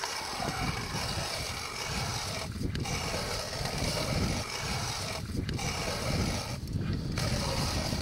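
Hand-cranked ice auger boring through lake ice: a steady grinding crunch of the blades cutting the ice, broken by three short pauses in the turning.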